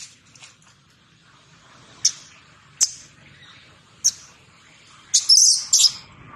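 Baby macaque squealing: short high-pitched squeaks about two, three and four seconds in, then a louder, drawn-out squealing cry near the end.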